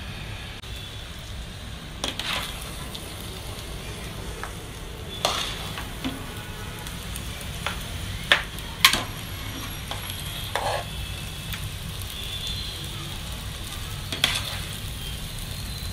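Metal spoon scraping and knocking against the inside of a metal pot as thick cooked chicken-and-potato mixture is scooped out onto a plate. A handful of sharp knocks stand out, the loudest two close together about eight and nine seconds in, over a steady low background noise.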